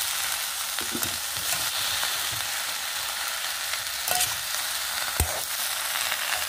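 Chopped okra and onion sizzling in hot oil in an iron kadai while a steel spatula stirs and scrapes through them. The spatula clicks against the pan, with one sharper knock about five seconds in.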